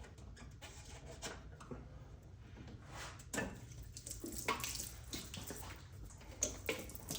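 Gasoline draining out of a motorcycle fuel tank through a hose into a container, trickling and splashing unevenly, growing busier about halfway through.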